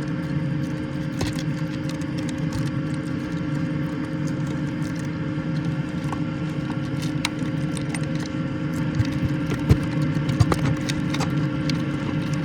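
A steady low mechanical hum with a few steady tones in it, and scattered light clicks and ticks over the top.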